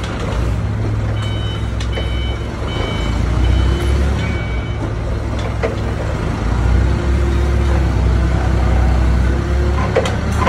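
Forklift engine running with a steady low drone while its forks are lowered and tilted, with a run of short repeated warning beeps from about one to three and a half seconds in.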